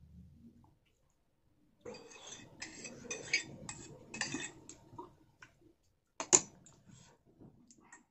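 A spoon scraping and clinking against a stainless steel bowl of oats for about three seconds, then one sharp clink on the bowl, the loudest sound, a little after six seconds in, and a few light taps near the end.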